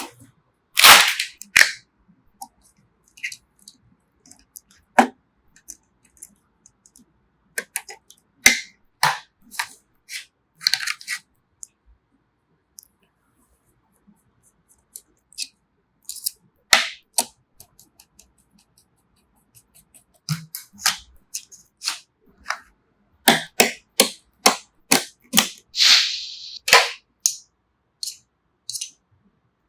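Sharp clicks, snaps and knocks of PC parts being handled and fitted during a build, each short and separated by stretches of quiet. They come in quicker succession in the last third, with a brief scraping rustle among them.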